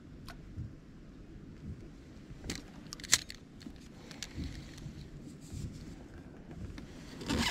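Fishing rod and spinning reel being handled for a cast: a sharp click about three seconds in is the loudest sound, with a cluster of clicks near the end, over a low steady rumble.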